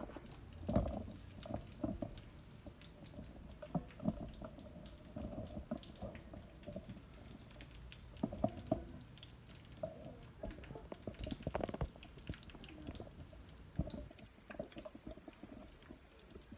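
Garlic frying in hot oil in a frying pan, with irregular crackles, clicks and knocks throughout.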